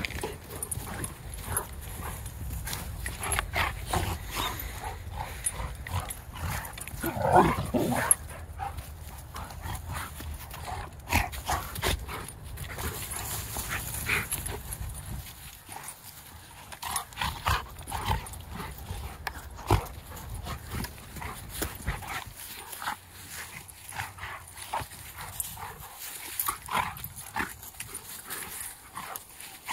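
Two golden retrievers play-fighting: growls and snarls amid quick scuffling on wood chips, with a louder outburst about seven seconds in.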